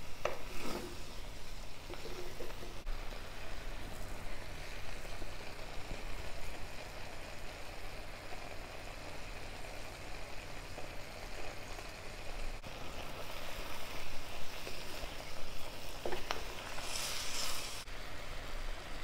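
Chicken pieces sizzling steadily in oil in a heavy black kadai, frying off the water they have released. A wooden spatula clicks against the pan near the start, and there is a brief scraping stir near the end, over a low steady hum.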